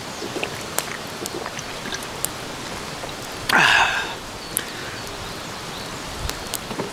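Steady rain hiss with scattered sharp clicks and crackles. About halfway through comes one short, loud breathy burst.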